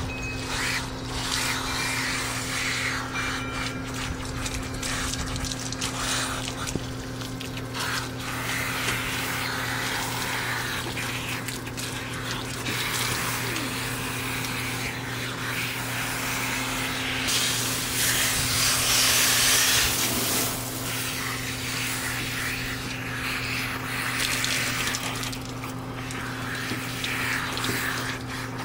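Water spraying from a garden hose nozzle onto a dog's wet coat: a steady spray that gets louder for a couple of seconds about eighteen seconds in.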